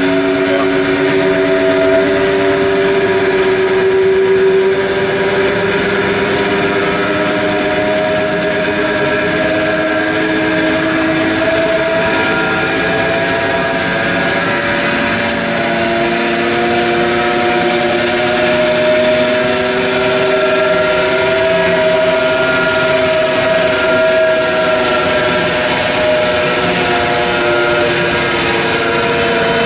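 Okamoto Grind-X CNC rotary surface grinder running under power: a steady machine hum made of several tones that slowly drift up and down in pitch, over a constant hiss.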